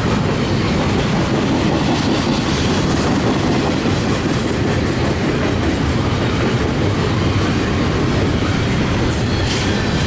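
Double-stack intermodal container cars of a CSX freight train rolling past: a loud, steady rumble of steel wheels on the rails.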